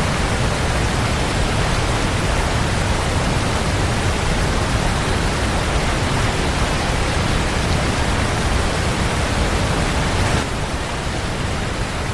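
Steady rush of a large waterfall, an even noise with no breaks, a little quieter from about ten seconds in.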